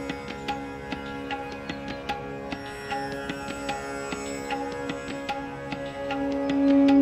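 Indian-style instrumental meditation music: rapid plucked string notes over a steady drone. Near the end a louder sustained tone swells in.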